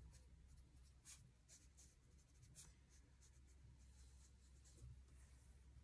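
Near silence with faint, irregular soft scratches and taps of a fine watercolor brush stroking and dabbing on watercolor paper, over a low steady hum.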